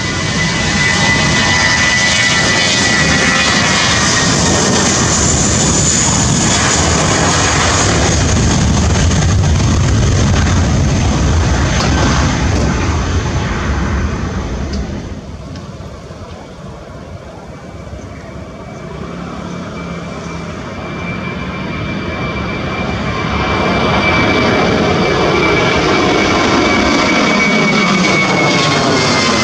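Jet engines of a Tigerair Taiwan Airbus A320-family airliner running loud with a high whine as it rolls down the runway, fading as it moves away about halfway through. Then the noise of a second jet airliner swells as it passes low overhead, again with a strong high whine.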